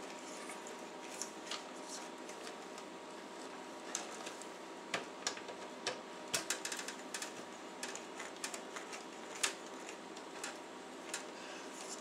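Irregular small clicks and light rattles of plastic power-supply connectors and wiring being handled and pushed into place inside a steel desktop computer case, with a quick cluster of clicks about six seconds in.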